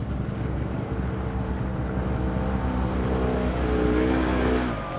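Side-by-side UTV engine running hard as the machine pulls through deep mud, building to its loudest about four seconds in, then backing off just before the end.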